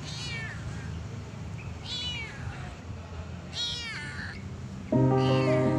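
Kitten meowing four times, each a high call falling in pitch, roughly one every one and a half to two seconds. Background music comes in suddenly near the end, louder than the meows.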